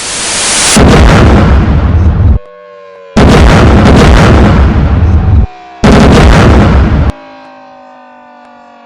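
Cartoon reactor-explosion sound effects: a rising whoosh, then three very loud blasts, each lasting one to two seconds. Steady siren tones sound underneath and slowly slide down in pitch after the last blast.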